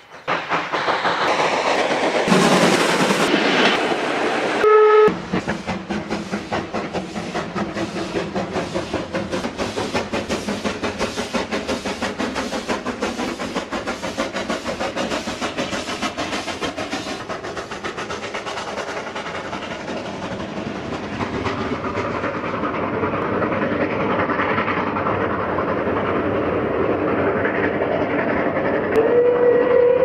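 Steam locomotive working a train, its exhaust chuffing in a fast, even beat that fades after about twenty seconds. A short whistle blast sounds about five seconds in, and a steam whistle starts near the end.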